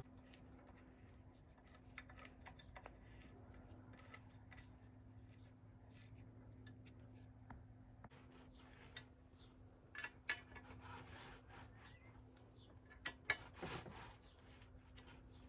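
Faint clicks and light rubbing of a hex key turning the headset top-cap bolt and of the stem and handlebar being handled, with a few sharper clicks in the last third, over a low steady hum.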